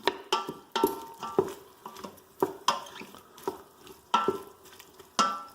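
A utensil stirring chicken in the Instant Pot's stainless steel inner pot on sauté: irregular sharp metallic clinks that ring briefly, about a dozen in all, over a faint sizzle of the food cooking.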